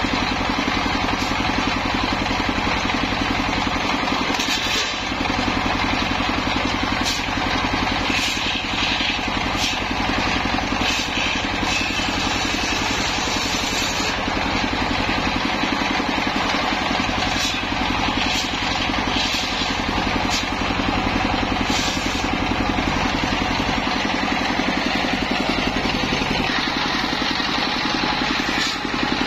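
Single-cylinder stationary diesel engine running steadily, belt-driving a homemade table circular saw. The saw's higher cutting noise comes and goes as petung bamboo stalks are pushed through the blade and split lengthwise.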